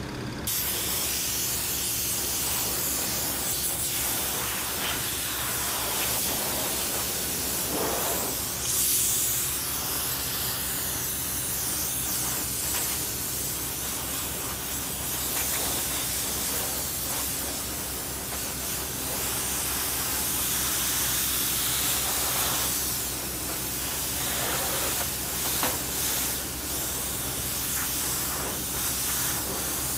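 Kärcher K3 pressure washer spraying a high-pressure water jet against the steel boom of a Caterpillar 307D excavator: a steady hiss of spray that starts about half a second in, with a steady low hum underneath.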